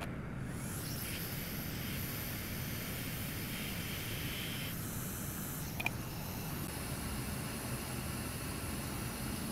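Steady hiss over a low hum, with one faint small click about six seconds in.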